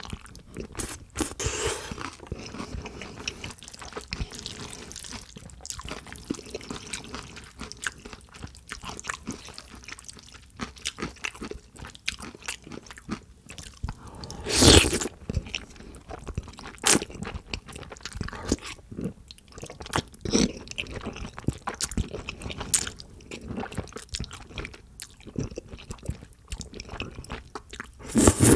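Close-miked mouth sounds of eating jajangmyeon: wet chewing and smacking of sauced noodles, with many short clicks throughout. A loud, longer slurp of a mouthful of noodles comes about halfway through, and another begins near the end.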